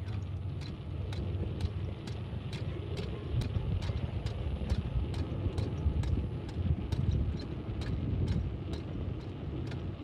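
Footsteps on an asphalt road, a walking pace of about two to three steps a second, over a low rumble.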